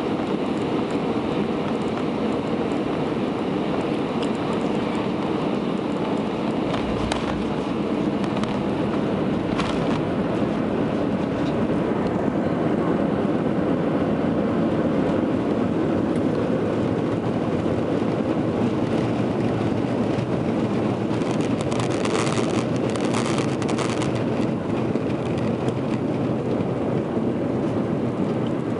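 Airbus A320 cabin noise from a window seat over the wing as the airliner rolls on the ground after landing: a steady rumble of engine and wheel noise, with a few short rattles, most of them in a cluster about three quarters of the way through.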